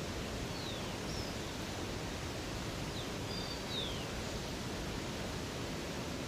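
Steady rush of flowing river or waterfall water, with faint bird whistles over it: a couple of short falling notes about half a second in, and a few more around three to four seconds in.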